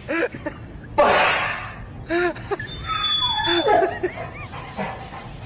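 Laughter in short repeated bursts, with a loud noisy burst about a second in.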